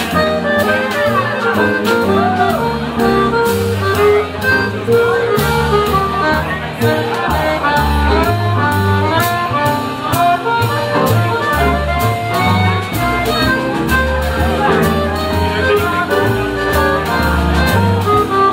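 Small live jazz band playing, with accordion, acoustic guitar and double bass heard over a steady beat.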